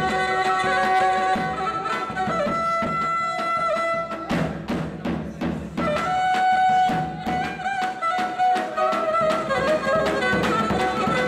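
Instrumental Pontic folk music: a Pontic lyra (kemenche) plays a bowed melody over the beat of a daouli, a large double-headed bass drum. The drum strokes come most to the fore about four to six seconds in.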